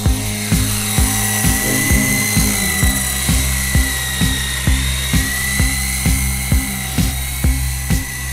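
Music with a steady beat of about two strikes a second and a deep bass line, over a high, steady whine that wavers slightly in pitch.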